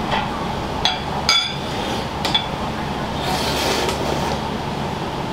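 Kitchenware clinking in a ramen shop kitchen: three sharp ringing clinks, about a second in, just after, and a little past two seconds, over a steady rushing kitchen background. A soft hiss comes in about three seconds in.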